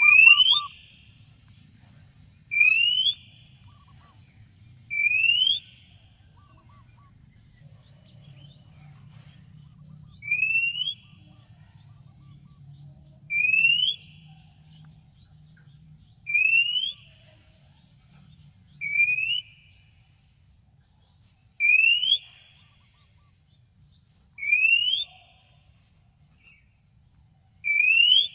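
Oriental magpie-robin (kacer) giving a repeated short whistle that slides upward in pitch, about ten times at intervals of roughly two and a half to three seconds, with one longer pause after the third. A faint low hum runs underneath.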